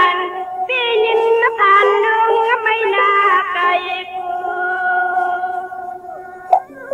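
A woman singing Shan traditional sung verse in a wavering, ornamented melodic line, settling into a long held note, with one sharp click about six and a half seconds in.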